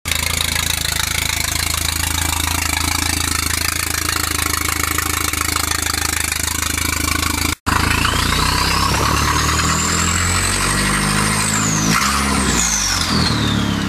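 Volkswagen Golf GTI Mk4's 1.8T turbocharged four-cylinder, its exhaust flex pipe freshly repaired, idling steadily. After a brief cut about halfway, it is heard from inside the cabin pulling away: the revs climb with a high turbo whistle rising over several seconds, which drops at a gear change near the end and then falls away.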